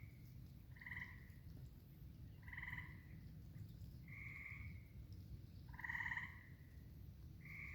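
Frogs calling at a pond: short trilled calls, each about half a second long, repeating roughly every second and a half, five times in all, faint.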